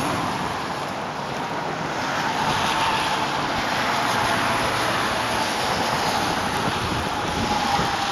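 Steady rushing noise of a river in major flood, mixed with wind buffeting the microphone.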